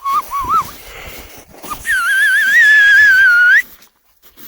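Dog whining: a short wavering whine at the start, then a louder, longer wavering whine of about a second and a half that rises at the end.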